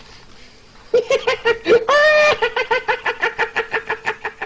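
A man laughing hard and high-pitched: a drawn-out squealing note about two seconds in, then a fast run of short repeated laughs, about seven a second, trailing off.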